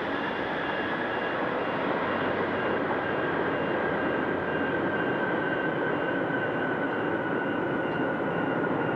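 Boeing 747-400 Dreamlifter's jet engines running during its landing rollout: a steady roar with a high whine that slowly falls in pitch.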